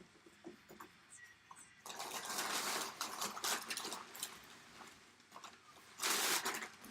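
Rustling and crinkling of plastic shrink wrap being torn off a cardboard box, with a long stretch of crackling a couple of seconds in and a second loud burst near the end, plus small handling clicks.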